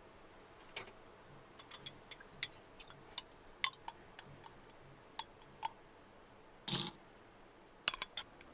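A scattered run of sharp, light clicks and ticks at irregular intervals, one much louder than the rest, with a short scrape or rustle about two-thirds of the way through.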